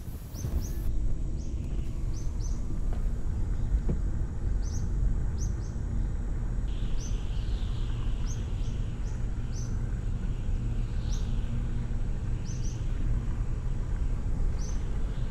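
A vehicle's engine and tyres rumbling low and steady, setting in just after the start, with short high bird chirps repeating every second or so.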